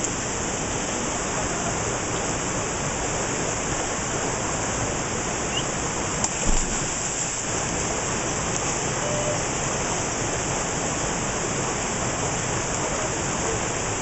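Mountain river rushing and churning over rocks into a pool, a steady white-water roar heard close to the surface. A brief thump sounds about six and a half seconds in.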